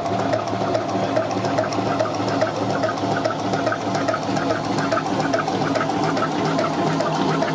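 Gaulin three-plunger high-pressure homogenizer running under load at just under 3,000 psi, its plunger pump giving a fast, even rhythmic clatter over a steady drone.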